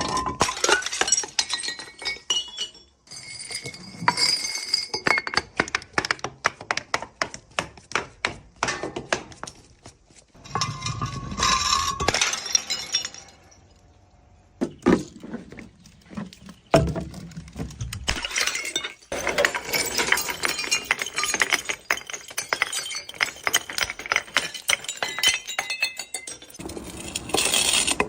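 Glass bottles smashing, their shards clinking and skittering in long runs of sharp, rapid impacts. A few duller thuds come about halfway through.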